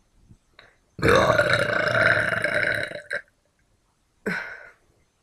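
A person's long, loud burp lasting about two seconds, followed by two short sounds, the second about a second later.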